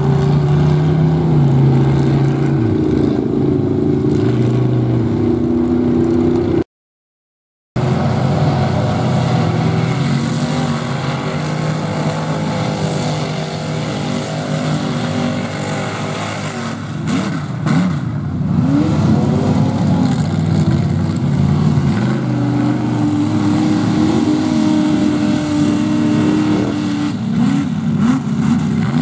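Engines of lifted mud-bog trucks on tractor tires revving hard as they churn through a mud pit, the pitch rising and falling over and over. The sound cuts out completely for about a second around seven seconds in.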